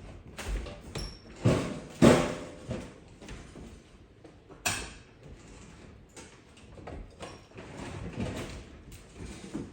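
Knocks and scraping from handling the range's metal panels and parts as it is taken apart, the loudest knocks about one and a half and two seconds in and again near five seconds.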